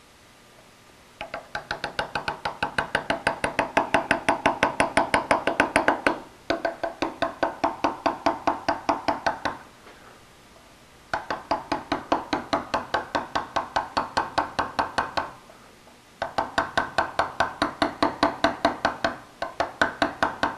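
A steel chisel driven into hard slate by quick hammer taps, cutting letters by hand, about seven or eight ringing strikes a second. The taps come in runs of several seconds with short pauses between them.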